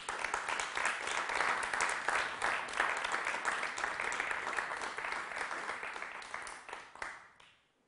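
Audience applauding: dense clapping that thins out and stops near the end.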